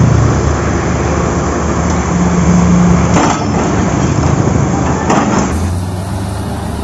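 Breaker excavator's diesel engine running steadily, with two louder crashing impacts about three and five seconds in. Near the end a lower, steadier engine hum takes over.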